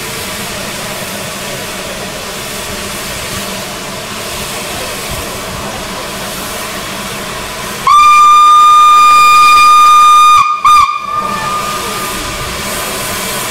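Steam locomotive standing with a steady hiss of escaping steam. About eight seconds in, its steam whistle sounds one long, loud, single-pitched blast of about two and a half seconds, then a short second toot: the signal before departure.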